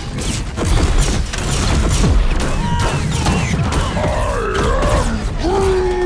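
Film fight-scene sound mix: rapid gunfire and impacts, with a loud wordless yell that wavers up and down over it from about halfway in.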